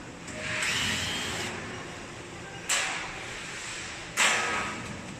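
A handheld power drill-driver runs in a short whining burst that spins up and holds its pitch, about a second in. Two sharp knocks or clatters follow, about halfway through and near the end.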